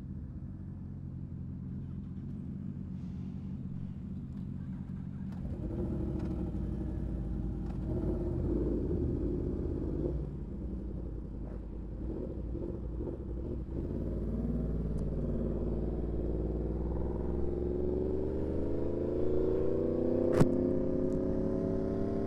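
Sport motorcycle engines running at idle, steady and low; over the last few seconds one engine's pitch rises as it revs up. A single sharp click near the end.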